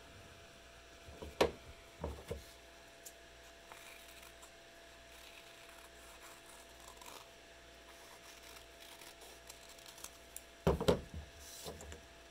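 Scissors cutting construction paper in faint, scattered snips and rustles, with sharp knocks on the tabletop about a second in and again near the end.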